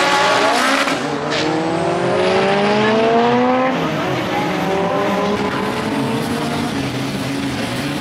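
Two drag-racing cars, one a Honda Civic hatchback, launching off the starting line and accelerating hard down the strip, engines revving up in rising sweeps through the gears. About four seconds in the climbing stops and the engine sound eases off a little as the cars run away into the distance.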